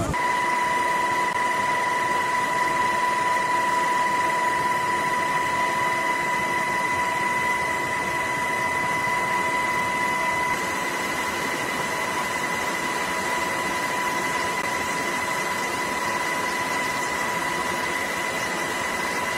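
A steady high electronic tone, like a held beep, over a constant hiss; it comes in suddenly and holds without a break, dipping slightly in level about halfway through.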